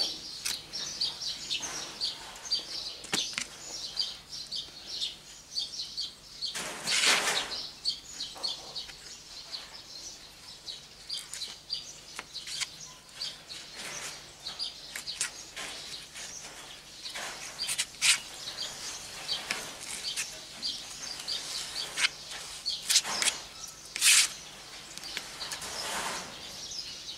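Small kitchen knife cutting and scraping through a ripe mango on a plastic cutting board, with scattered taps of the blade on the board and a few louder scrapes. Birds chirp steadily in the background.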